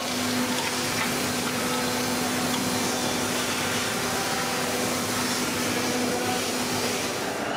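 Steady foundry noise as molten iron is tapped from a tilted induction furnace into a casting ladle: an even hiss with a steady hum that stops about seven seconds in.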